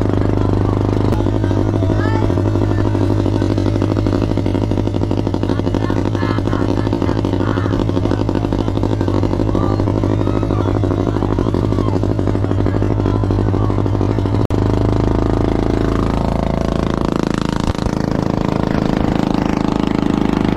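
Motorized bangka outrigger boat's engine running steadily at a constant speed. About two-thirds of the way through the sound breaks off for an instant, then the engine carries on with more rushing water and wind noise.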